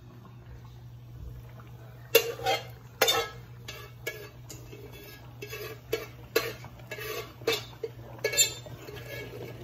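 Pots, pans and kitchen utensils being handled. After a quiet first two seconds come irregular sharp knocks and clinks, over a steady low hum.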